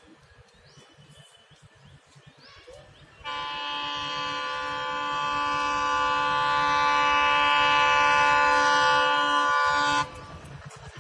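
Indian Railways locomotive horn blowing one long, unbroken blast of about seven seconds. It starts suddenly about three seconds in, grows louder as the train approaches, and cuts off sharply near the end, sounded as the train runs through the station without stopping.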